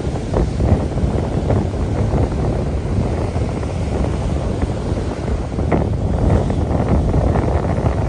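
Surf breaking and washing up a sandy beach: a continuous rushing wash of small waves. Wind buffeting the microphone adds a heavy low rumble.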